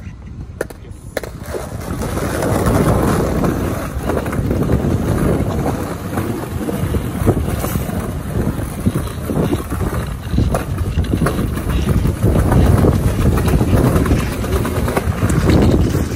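Skateboard wheels rolling over paving stones during a long one-foot manual on the back wheels: a steady rumble with small clacks at the slab joints, louder from about two seconds in.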